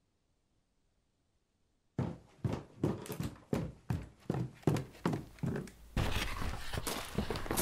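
Near silence, then footsteps on a hard surface start about two seconds in, about two steps a second. About six seconds in a steady background noise comes in, with quicker, overlapping steps over it.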